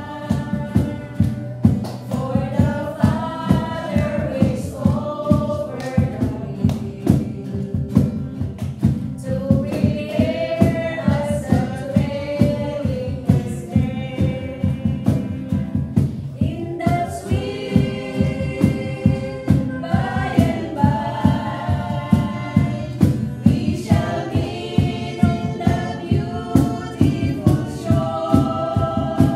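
A small group of women singing a gospel hymn together, accompanied by a small acoustic guitar strummed in a steady beat about twice a second.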